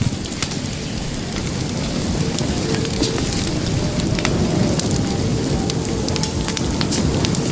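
Open wood fire crackling: a steady hiss with many sharp pops and snaps scattered throughout.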